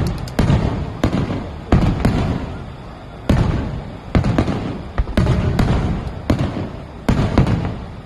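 Aerial fireworks shells bursting in quick succession during a display finale: a rapid series of sharp booms, each trailing off in a low rumble before the next.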